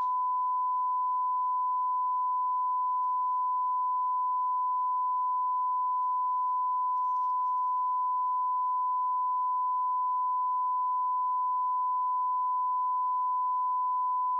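Steady 1 kHz broadcast reference tone, the "tone" of bars and tone, held unbroken at one pitch and level.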